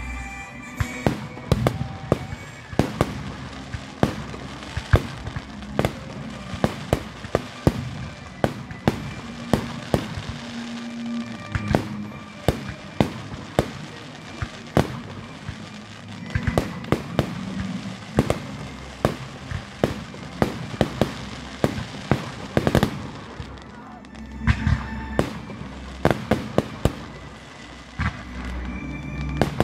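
Fireworks display: aerial shells going off in a quick irregular run of sharp bangs, several a second at the busiest moments, with crackling from the bursting stars.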